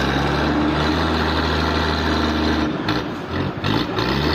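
An engine running steadily, its pitch wavering and shifting about three seconds in.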